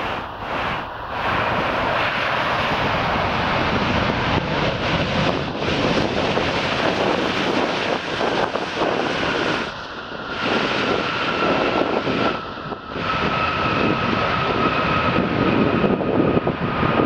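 Airbus A380's four Rolls-Royce Trent 900 jet engines running during the landing rollout: a steady jet roar, joined about nine seconds in by a thin high whine, with brief dips in level near ten and thirteen seconds.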